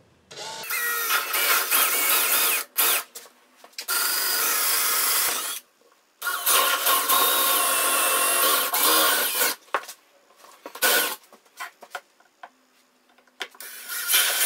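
Cordless drill boring starter holes through a laminate worktop, for a jigsaw blade to be plunged in. It runs in three longer stretches of a couple of seconds each with short stops between, then a few brief spurts, and starts again near the end.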